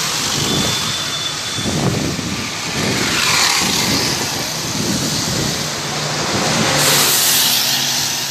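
Roadside traffic: motor vehicles passing with engine noise and tyre hiss, and a louder rush of noise about seven seconds in as a vehicle goes by.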